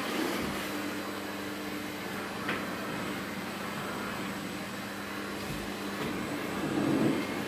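Vacuum cleaner running with a steady hum, with a short knock about two and a half seconds in and a bump near the end as the wand is moved.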